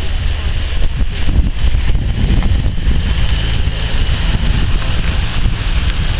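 Mercedes SL63 AMG's twin-turbo V8 running as the car slides sideways through a drift on wet tarmac, heavily buffeted by wind noise on the microphone.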